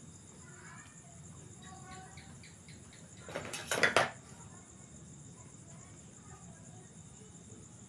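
Crickets trilling steadily, with a short loud burst of plastic rustling and scraping about three and a half seconds in as a sachet of coconut milk is squeezed and handled over a plastic mixing bowl.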